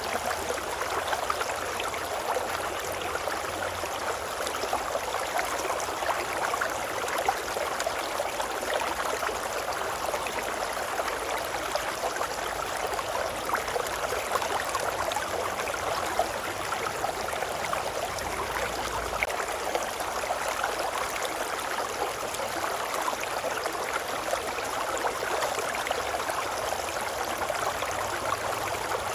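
Babbling brook: running water flowing and babbling steadily, a continuous even rush.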